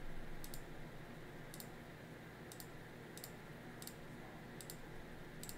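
Computer mouse button clicking, about seven short click-clacks roughly once a second, as items are selected one after another. The clicks are faint over steady room hiss.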